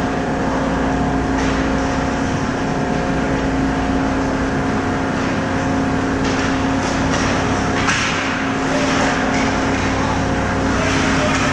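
Steady machinery hum with a few fixed pitches over a constant noisy drone, the running sound of an indoor ice rink's air-handling or refrigeration plant. Short hissing scrapes of skate blades on ice come and go in the second half.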